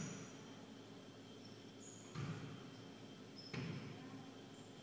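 Quiet gym lull in a pickup basketball game: a few short, faint sneaker squeaks on the hardwood floor and a couple of soft thuds, about two and three and a half seconds in.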